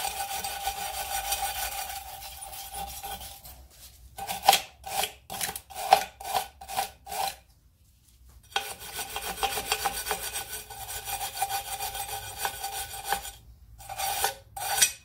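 Hand wire brush scrubbing the steel back plate of a Land Rover Defender's transmission handbrake, cleaning the contact points where the shoes bear. Steady scrubbing, then about seven separate strokes roughly two a second, a short pause, more steady scrubbing, and two last strokes near the end.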